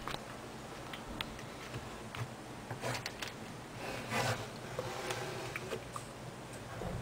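Faint pencil scratching and paper rubbing as someone writes on a sheet of paper, with a couple of short scratchy strokes about three and four seconds in and small ticks in between.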